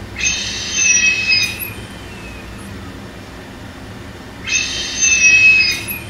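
Gas flow from an ICU ventilator through a split breathing circuit, heard as a high-pitched whistling hiss that comes with each mechanical breath. It sounds twice, each time for about a second and a half, about four seconds apart.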